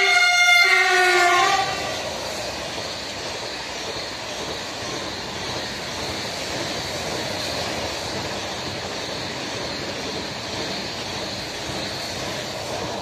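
A double-deck TGV high-speed train passing: a horn sounds for about two seconds, briefly broken near the start. Then the steady rushing rumble of the train's cars running past.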